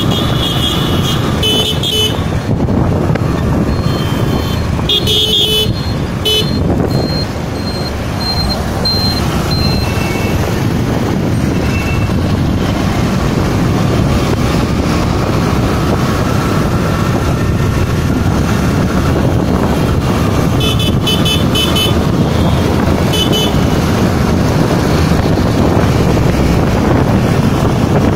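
Steady engine, road and wind noise from riding through heavy city traffic, with short high-pitched horn beeps from the traffic near the start, around five seconds in and again around twenty-one seconds in.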